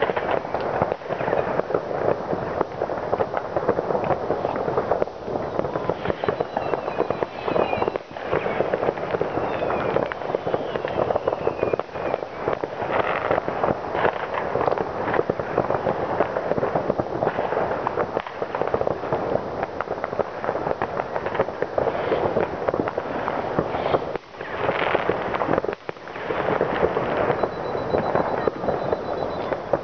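New Year's Eve fireworks going off all over a town: a dense, unbroken crackle of firecrackers and rocket bangs, with a few falling whistles about a quarter of the way in.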